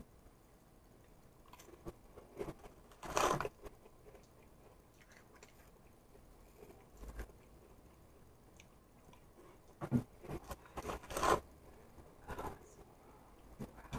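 A person eating crackers: scattered chewing and crunching, with louder crunches about three seconds in and a cluster of them around ten to eleven seconds.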